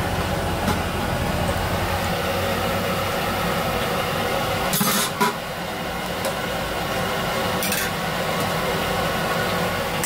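Steady background din of a busy roadside food stall with a low hum throughout. A few brief sharp sounds come about five and eight seconds in, as food is scooped from steel pots and wrapped in foil-lined paper.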